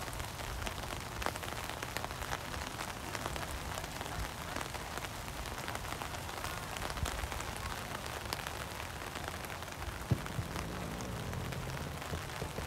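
Steady rain with many small drops ticking close by, and a single thump about ten seconds in.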